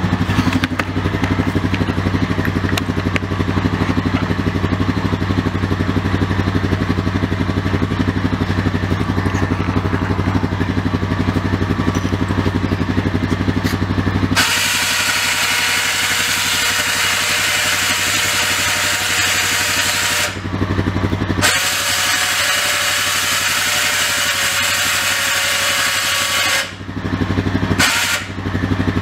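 Honda Rancher ATV's single-cylinder engine idling steadily. About halfway through, a Badlands 2500 lb electric winch motor takes over, running with a loud, steady whirring whine and stopping briefly twice near the end.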